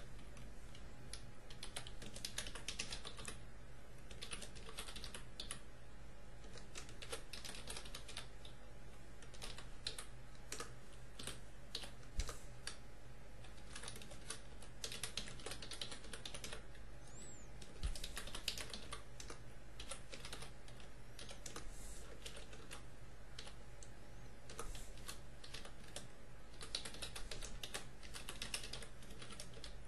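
Typing on a computer keyboard: rapid keystroke clicks in bursts separated by short pauses.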